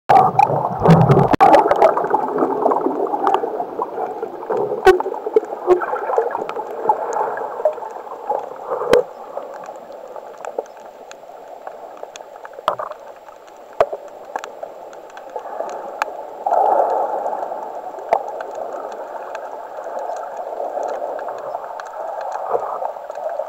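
Muffled underwater water noise heard through a camera's waterproof housing as a diver swims with a speargun. It is loudest in the first couple of seconds and swells again about 16 seconds in, with scattered sharp clicks throughout.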